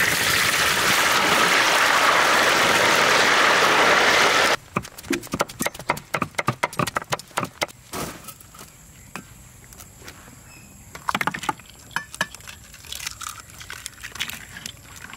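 Hot liquid in a large wok hissing loudly as whole red bell peppers are tipped in, cut off abruptly after about four and a half seconds. Then rapid knife chopping for a few seconds, followed by a few quieter knocks and clicks.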